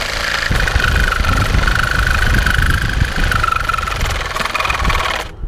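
Reciprocating saw (Sawzall) running and cutting through an aluminum pole, with a high wavering whine over the rattle of the blade. It gets louder about half a second in and stops suddenly just before the end.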